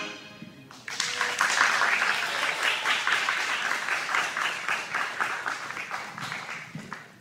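Audience applauding, starting about a second in as a dense patter of many hands clapping and gradually fading out near the end.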